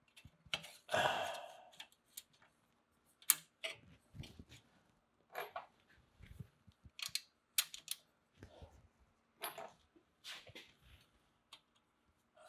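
Irregular small metal clicks, taps and scrapes of hands fitting an exhaust bracket piece onto its mounting bracket under a car, with a longer, louder rustle about a second in.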